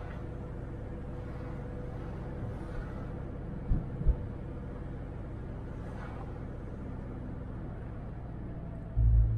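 Car cabin noise while driving: a steady low engine and road rumble with a faint steady hum. Two short low thumps come about four seconds in, and a heavier low thump near the end.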